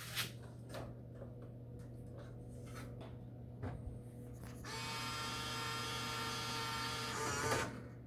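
Vending machine powering up: a steady electrical hum with a few light clicks, then a buzzing motor whir for about three seconds starting around halfway in.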